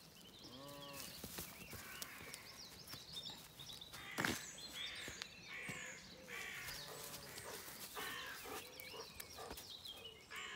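Faint songbirds chirping and singing throughout, with one short sheep bleat near the start and a single sharp click about four seconds in.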